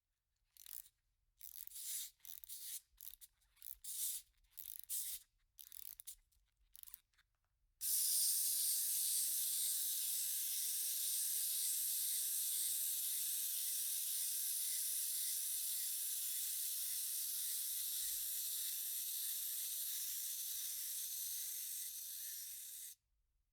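Cartoon wind-up toy sound effect: about a dozen short, irregular noisy bursts over the first eight seconds, then a steady high hiss for about fifteen seconds that cuts off suddenly.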